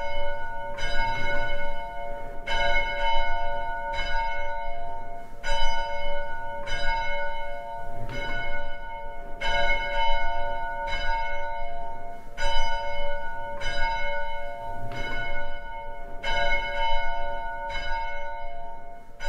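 A church bell ringing, struck over and over about once a second, each stroke ringing on into the next.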